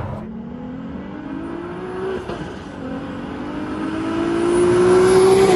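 Supercharged 3.2-litre V6 petrol engine of a VW Caddy van accelerating hard as it approaches. The revs rise, drop at a quick gear change about two seconds in, then climb again, louder toward the end.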